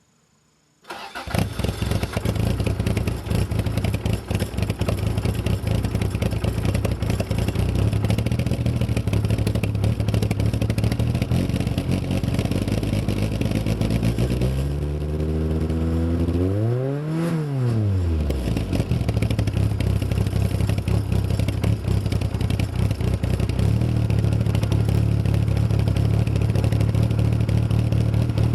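Toyota AE85 Sprinter Trueno's four-cylinder engine starting up about a second in and idling through a rusted aftermarket Trust muffler with holes in it. Halfway through there is one rev that rises and falls back to idle.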